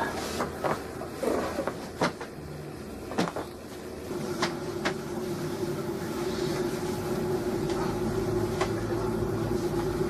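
Sharp, scattered clicks and cracks from a hands-on chiropractic adjustment of the spine, about seven in all, a second or more apart, over a steady low hum.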